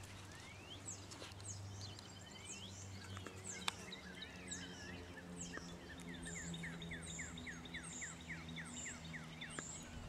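Birds singing outdoors: thin high calls and a few rising whistles, then a run of quick downslurred whistled notes, about three a second. A faint low steady hum lies underneath.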